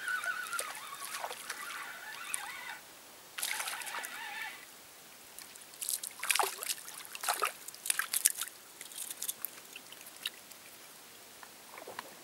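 Spinning reel on a feeder rod being wound in, a wavering whir that stops and starts again. From about six seconds in, a small hooked fish splashes and thrashes at the surface as it is drawn to the bank; these splashes are the loudest sounds.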